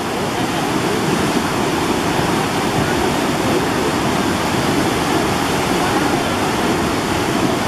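A mountain river in flash flood, its swollen, silt-laden water rushing steadily and loudly.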